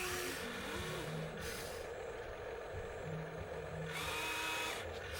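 Electric motors of a radio-controlled construction model whirring, their pitch jumping up and down as the controls are worked, with short bursts of higher hiss and whine, the longest about four seconds in.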